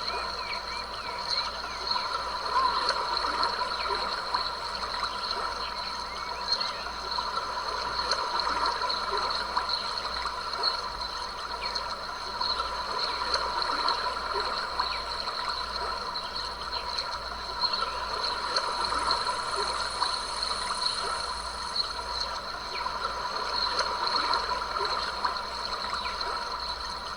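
A stream trickling and gurgling steadily, with a continuous high-pitched chorus of small night creatures running over it.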